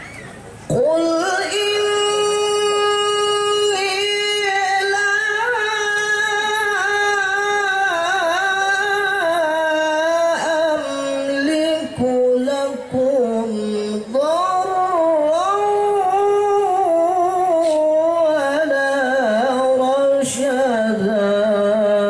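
A male qari reciting the Quran in the melodic tilawah style. The long, ornamented phrases come in about a second in, held on high notes at first and sinking lower towards the end, with brief pauses for breath about halfway.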